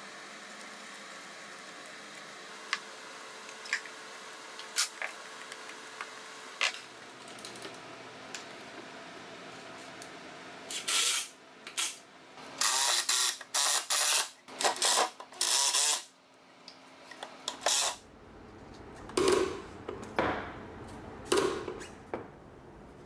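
Woodworking assembly sounds: scattered light clicks and knocks of wooden parts and hardware being handled, then a run of short, loud, noisy bursts of tool work about half a second each, and near the end a few duller, lower bursts.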